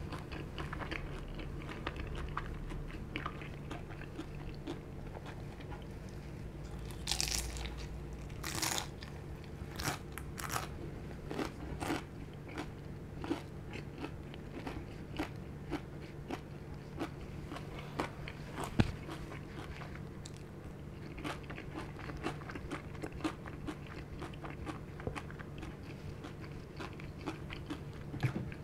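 Close-up eating sounds: crunchy bites and chewing of crisp fried dim sum, with a cluster of louder crunches about a quarter of the way in, then softer, sparser chewing.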